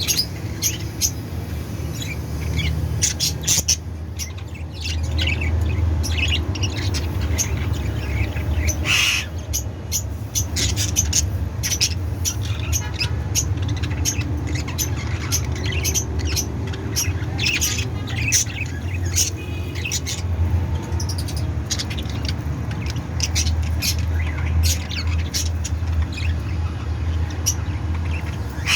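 A colony of budgerigars chirping and chattering, many short calls overlapping throughout, over a steady low hum.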